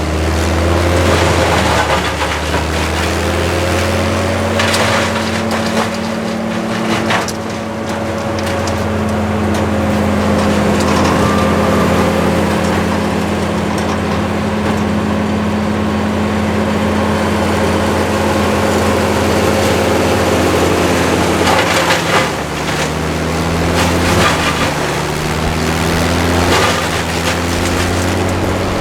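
A large engine on tree-cutting equipment running steadily, its pitch shifting slightly, while wood cracks and splinters several times.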